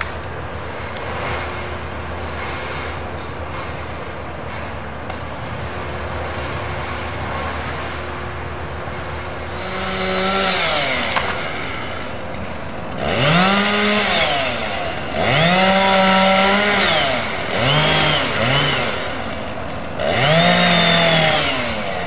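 A chainsaw revving in five or six bursts from about ten seconds in, each rising in pitch, holding and dropping back as the climber cuts into the pine at the top of the tree. A steady low engine hum runs underneath.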